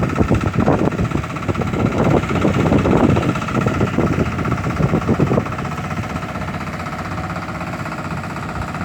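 An engine running steadily. For the first five seconds or so, loud, uneven low rumbling lies over it, then it settles to a steadier hum.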